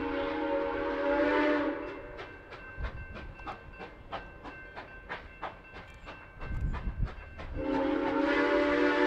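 Steam locomotive whistle on a 2-8-2 Mikado, a long blast that cuts off about two seconds in and starts again near the end. Between the blasts comes a quick run of sharp clanks, about three a second.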